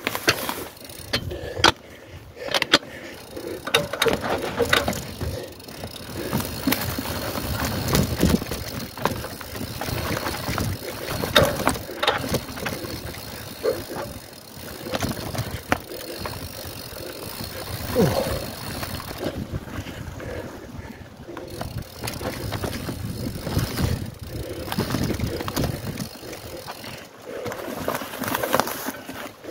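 Mountain bike ridden over a rough cross-country dirt trail: tyre noise and the bike rattling over bumps, with many sharp knocks scattered throughout. Voices are heard at times.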